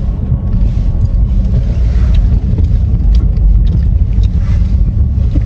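Steady low rumble inside a car cabin with the car running, heard close on a phone microphone, with a few light ticks.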